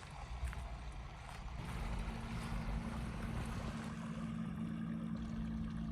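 A fishing boat's motor running slowly as it comes in, a steady low hum that sets in about one and a half seconds in.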